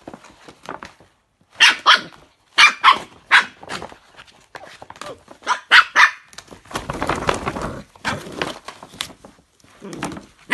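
Scottish terrier puppy barking in a run of short, sharp barks during the first six seconds, then crinkling and tearing a paper shopping bag.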